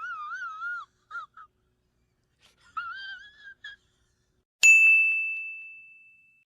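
Meme sound effects: a wavering, warbling whistle-like squeak, a few short chirps, a second warble, then a single bell ding that rings out and fades.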